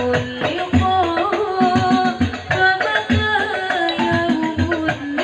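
A woman singing a sholawat melody over banjari frame drums (terbang) played by hand, with deep bass strokes under quicker sharp slaps keeping a steady rhythm.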